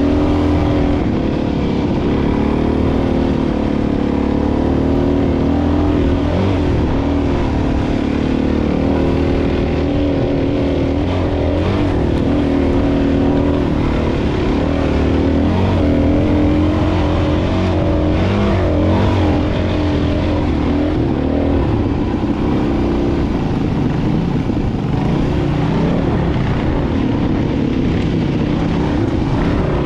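Suzuki DR-Z400 dual-sport motorcycle's single-cylinder engine running under load on a rough trail. Its pitch keeps rising and falling as the throttle is worked.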